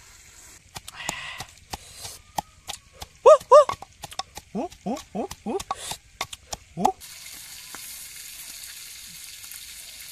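Pestle pounding in a wooden mortar: a run of quick, uneven knocks with several short squeaky, pitched sounds among them, the loudest pair about three seconds in. About seven seconds in it gives way to a steady sizzle of octopus frying in a pan over a wood fire.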